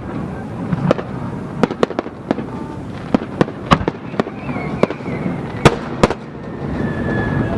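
Aerial fireworks shells bursting in quick, irregular succession: a dozen or more sharp bangs, one standing out louder about two thirds of the way through.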